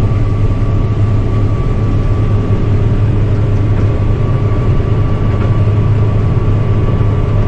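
Combine harvester running steadily under load while harvesting barley, heard from inside the cab: a loud, even low drone with a faint steady whine above it.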